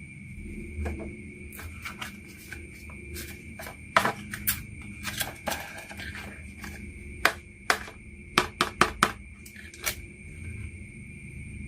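Marbles rolling down a wooden HABA marble run: a low rolling rumble broken by sharp clacks as they hit the track, with a quick run of clacks about eight to nine seconds in. A faint steady high tone runs underneath.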